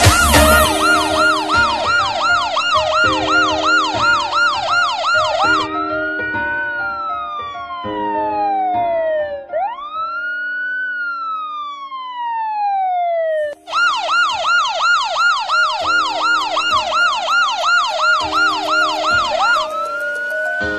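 Electronic siren cycling between a fast yelp, about three sweeps a second, and a slow rising-and-falling wail: the wail takes over about six seconds in, the yelp returns about fourteen seconds in, and the wail starts again near the end. Low repeating tones run underneath.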